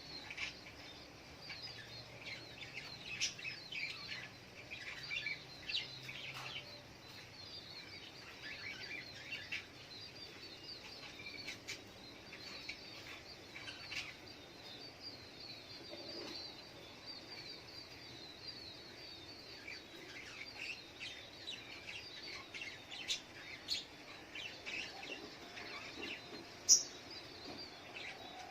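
Little spiderhunter (sogok ontong) calling: a dense run of short, high chirps, with a single sharper, louder note near the end.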